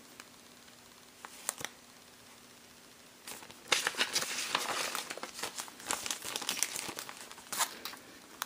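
Clear plastic zip-top bags crinkling as they are handled, with a couple of brief crackles early on. From about three seconds in there is dense, continuous crinkling that stops shortly before the end.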